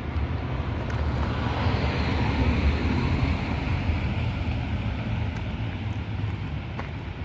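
A car passing by: its road noise swells to a peak about two to three seconds in and fades away, over a low wind rumble on the microphone.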